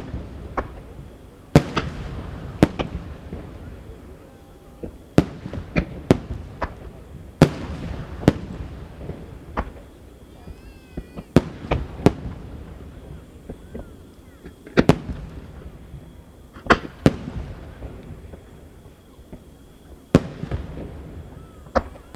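Aerial firework shells bursting one after another: loud, sharp booms every second or two, each followed by a rolling echo.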